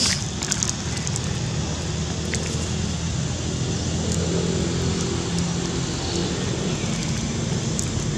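A steady low hum of a running engine, with a few sharp crinkles right at the start as a plastic food bag is handled.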